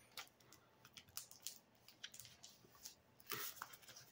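Faint crackles and scrapes of paper-faced foam board being folded over and pressed along its score lines by hand, with a louder rustle a little after three seconds in.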